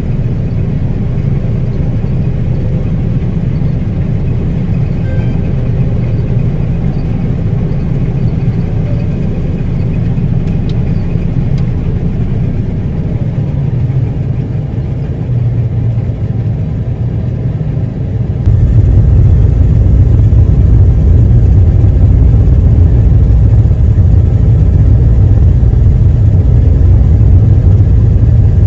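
Steady low drone of a combine running. It jumps abruptly louder about two-thirds of the way through.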